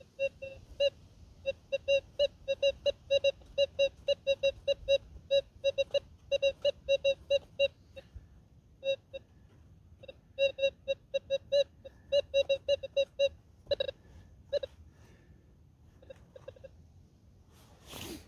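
Minelab Gold Monster metal detector giving short repeated beeps, about three a second, as the coil is swept over a buried target. The beeps stop for a couple of seconds about eight seconds in, then trail off into a few fainter beeps, with a brief rustle near the end.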